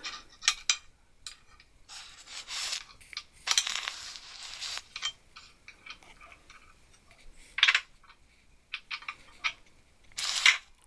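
Spanner working the nuts on a vintage four-jaw lathe chuck: irregular metal clinks and a few scrapes about a second long, with tools knocking on metal.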